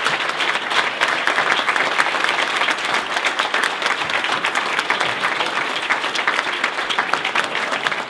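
A roomful of people applauding steadily, dense hand clapping with no break.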